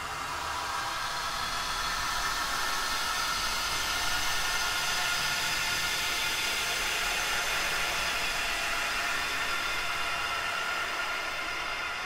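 Spooky 'wails of the dead' sound effect: a hissing, wind-like wash of noise with faint drawn-out tones threaded through it, swelling over the first few seconds and easing off a little near the end.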